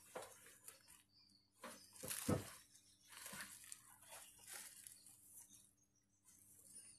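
Faint rustling, crinkling and scraping of things being handled, with one knock a little over two seconds in.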